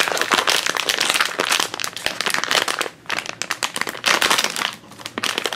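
Blind-bag packaging being crinkled and handled as a mystery figure pack is opened, an irregular crackling rustle with two brief lulls.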